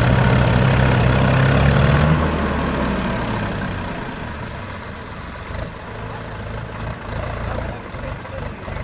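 Diesel tractor engines of a Swaraj 744 FE and a Mahindra pulling a stuck, fully loaded sugarcane trolley: running loud and steady, then easing back to idle about two seconds in.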